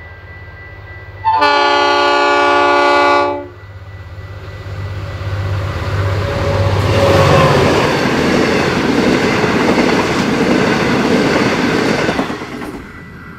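Mainline diesel locomotive sounding its horn in one long chord of about two seconds, then the train passing close by under load on a climbing grade: engine noise and wheel clatter build, peak about halfway, and drop off sharply near the end.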